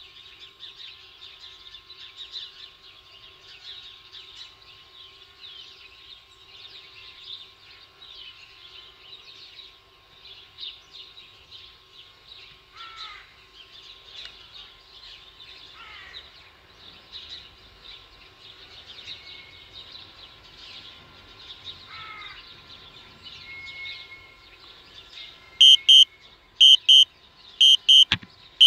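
Small birds chirping continuously, with a few rising calls. Near the end, a drone flight app's warning alert beeps loudly in quick repeated pairs as the DJI Spark switches to landing.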